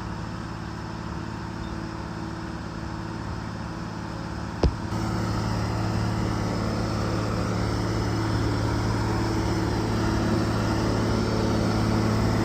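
An engine running steadily with a low, even hum that grows gradually louder. A single sharp click comes about a third of the way in.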